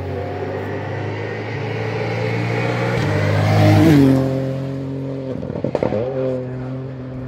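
Ford Fiesta rally car approaching at full throttle and passing close by, loudest about four seconds in, with its engine note dropping in pitch as it goes past. A quick series of sharp cracks follows a couple of seconds later.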